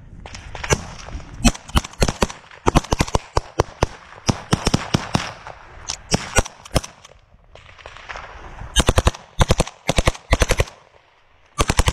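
Close small-arms rifle fire: single shots and rapid runs of several shots, with quieter shots between them, spread through the whole stretch; the heaviest runs come about nine to ten and a half seconds in and again at the end.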